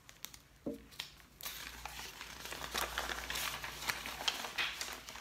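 Paper rustling and crinkling as a folded printed document is opened out and handled, starting about a second and a half in.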